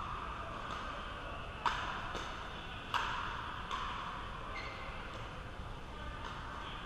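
Pickleball paddles striking a hard plastic pickleball in a net rally: a string of sharp pops about one a second, each ringing briefly in the large hall.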